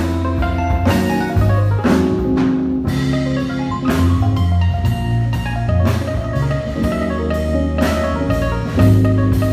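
Live instrumental band music: an electronic keyboard playing chords and melody over a strong bass line and a drum kit, with drum and cymbal strokes about once a second.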